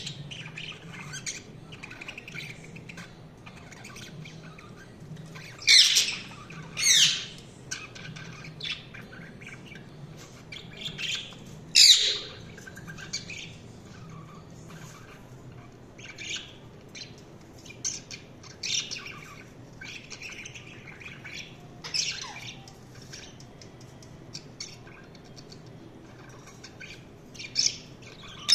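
Budgerigars chirping and chattering, with louder, harsh squawks breaking in now and then, three times in the first half and again at the very end.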